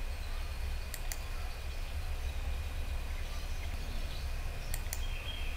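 Computer mouse clicking: two quick clicks about a second in and two more near the end, over a steady low hum.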